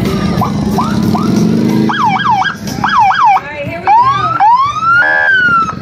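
Electronic police sirens on the sheriff's motor-unit motorcycles, blipped in short bursts: a few quick rising chirps, then rapid up-and-down yelps, then longer rising wails. Near the end comes a brief buzzing horn tone that slides down in pitch.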